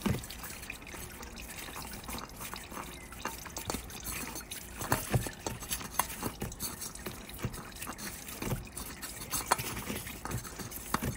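Engine oil still dripping from the open sump, with irregular small clicks and rubbing as gloved hands handle a new oil filter and try to line it up on its threaded housing.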